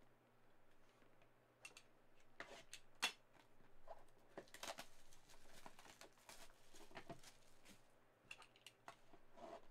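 Faint handling of a shrink-wrapped trading-card box: soft crinkling of the plastic wrap and scattered light clicks and knocks as the box is turned over in the hands and set down on the table.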